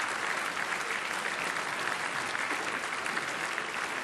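Audience applauding: steady, dense clapping of many hands that holds at an even level throughout.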